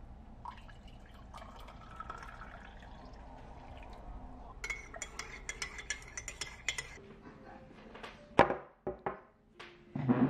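Coffee poured from a glass pour-over carafe into a ceramic mug, then a teaspoon stirring and clinking rapidly against the inside of the mug for about two seconds. A few loud knocks follow near the end.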